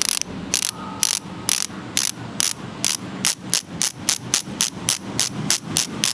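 Sagmit Secret V12 ratchet-type rear hub freewheeling as it is spun, giving repeated sharp clicks, about two a second at first and quickening to about four a second. It is a little louder than the Weapon Hammer ratchet hub.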